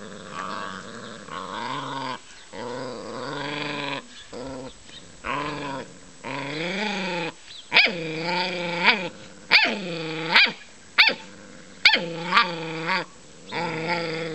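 Tosa puppies growling in play while tugging on a toy: a run of long, drawn-out growls, then from about halfway shorter growls broken by sharp, quick barks.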